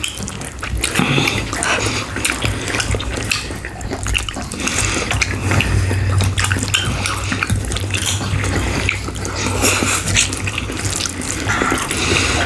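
Close-miked wet chewing and lip-smacking of ribs in sauce, rice and beetroot: a dense run of small clicks and squelches, over a low steady hum.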